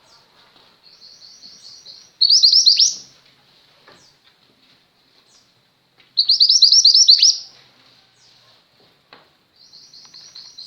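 A female 'mantenan gunung' songbird singing. Two loud bursts of rapid high chirps, about 2 s and 6 s in, stand out against softer chirping trills before and near the end.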